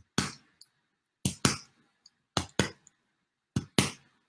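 Sharp finger snaps, mostly in quick pairs. A single snap comes first, then three pairs about a second apart.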